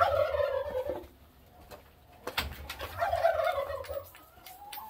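Laying hens calling: two drawn-out, wavering calls about two seconds apart, with scattered sharp knocks between them.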